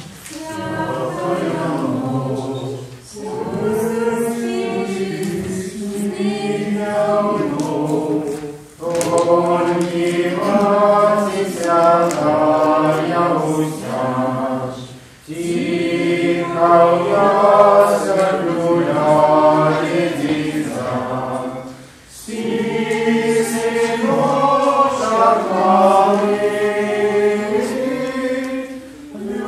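A small choir singing a Belarusian Christmas carol (kalyada) without accompaniment, in long phrases with short breaks between them.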